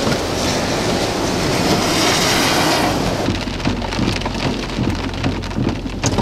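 Heavy storm rain: a dense, steady rush for the first three seconds, then, after a sudden change, rain pattering with many close drops ticking.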